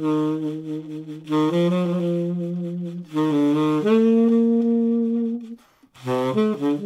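Tenor saxophone playing a slow swing phrase with a soft, fluffy, subtoned sound and vibrato: a few long held notes, the longest about two seconds, then a quick run of short notes near the end.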